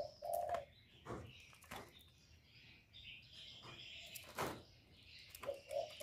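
Spotted dove cooing: a few short, low coo notes near the start and again near the end. Sharp knocks sound in between, the loudest about four and a half seconds in.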